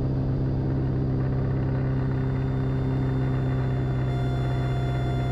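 Light aircraft's engine and propeller droning steadily, heard inside the cockpit during the landing approach. A faint thin higher tone joins about four seconds in.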